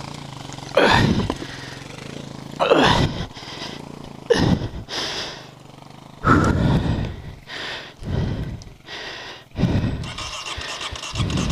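A person panting heavily, about nine loud breaths one to two seconds apart, winded after lifting a fallen dirt bike.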